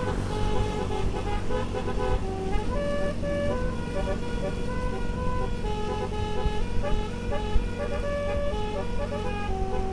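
Basuri snail-type telolet horn playing a melody in a string of held notes that step up and down in pitch, over a steady low engine hum.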